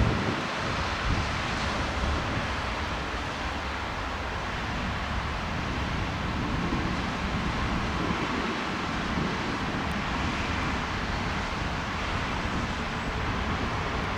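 Airbus A319neo jet engines as a steady rushing, with wind buffeting the microphone, heaviest around the first second.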